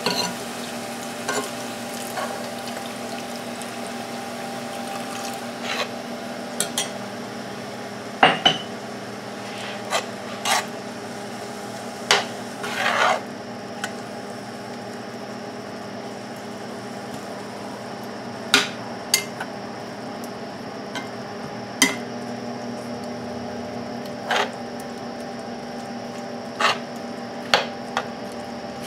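A slotted metal spoon stirring spinach in a cast-iron skillet, clinking and scraping against the pan every few seconds over a steady hum.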